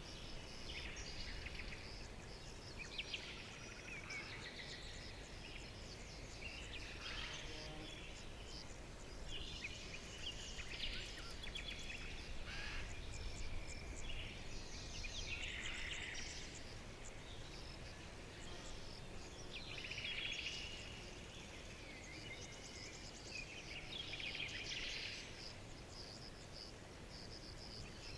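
Forest songbirds singing, several overlapping chirps and trills every second or two, over a steady low rumble of background noise.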